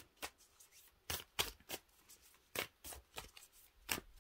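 Oracle deck cards being handled and shuffled: a string of soft, irregular snaps and taps.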